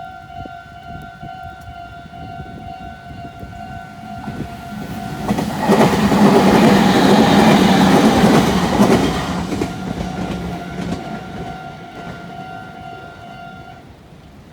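Japanese railroad crossing alarm bell ringing its steady repeated kan-kan while a Meitetsu Inuyama Line train passes. The train's rush and rumble swell about four or five seconds in, are loudest between six and nine seconds in, then fade. The bell stops just before the end.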